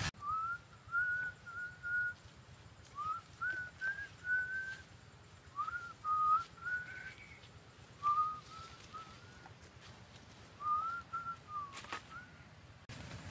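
A bird singing: short phrases of three to five clear whistled notes, each with a slight upward slur, repeated about every three seconds. A sharp click comes near the end.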